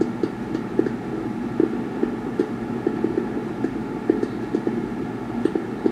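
Fireworks popping and banging at an irregular pace, several reports a second, over a steady rumble of background noise. It is heard through a television's speaker, so the bangs are thin and boomy.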